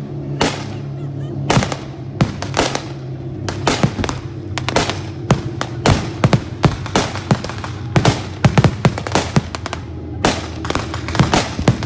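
Simulated anti-aircraft fire in an air raid reenactment: an irregular, often rapid string of sharp bangs, coming thicker in the second half, over a steady low drone.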